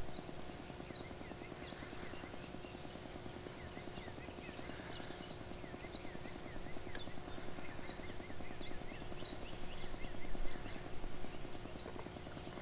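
Small birds chirping faintly in short, quickly repeated notes over a steady low electronic hum and background hiss.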